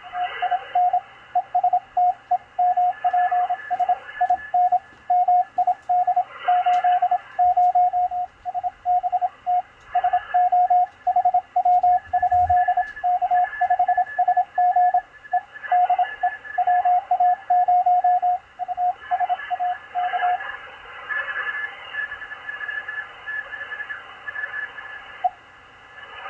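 Morse code (CW) signal on the 20-metre ham band heard through a shortwave SDR receiver: a single steady tone keyed in dots and dashes over band hiss. The keying stops about 20 seconds in, leaving the hiss and a fainter, higher-pitched second Morse signal.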